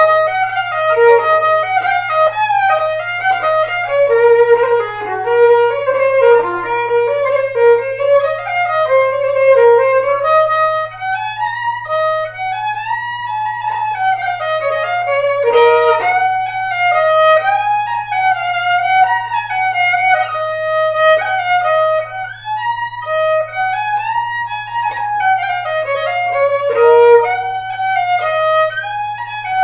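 Solo fiddle playing a waltz tune unaccompanied, a bowed melody of quick notes stepping up and down.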